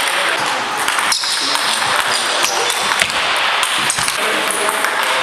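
Table tennis rally with hardbats, the pimpled rubber bats with no sponge: the celluloid ball clicks off the bats and the table again and again, over a steady background hiss of hall noise.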